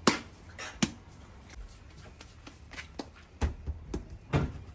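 Hands slapping and patting a ball of bread dough, then pressing it flat on a floured cloth: a few soft slaps, one near the start, one about a second in, then a quicker cluster near the end.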